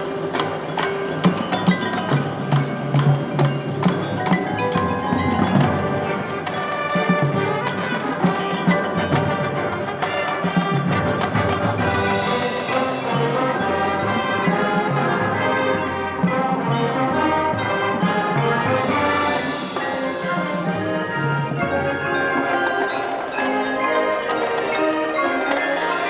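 Marching band of brass, woodwinds and percussion playing a concert show piece, with the front ensemble's marimbas, xylophones and other mallet percussion prominent. Sharp accented hits punctuate the first several seconds before the music settles into a fuller, steadier texture.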